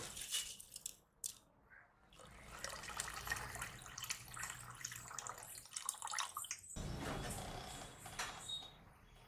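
Water poured from a jug into an aluminium pressure cooker, splashing and trickling into the cooking mixture.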